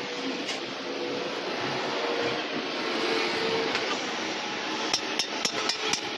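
A steady hissing noise, with a quick run of about five sharp metallic taps near the end, some four a second.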